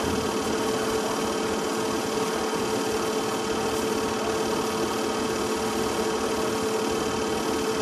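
Film projector running in a small room: a steady mechanical whirr with a constant hum, unchanging throughout.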